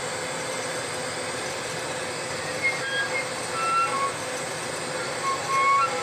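Glassworking hand torch flame hissing steadily against a glass tube turning in a glass lathe. From about halfway through, short high-pitched squeaks come and go at several pitches.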